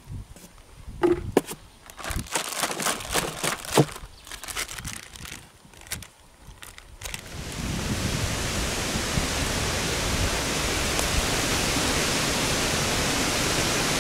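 Crinkling plastic bag and light clicks as a bottle is bagged in a cooler of ice, then, about seven seconds in, a sudden switch to the steady hiss of heavy rain.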